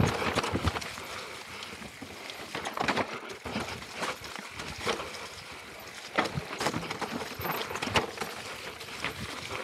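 Mountain bike descending a rocky trail covered in dry leaves: tyres crunching over leaves and stones, with irregular knocks and clatter as the wheels hit rocks.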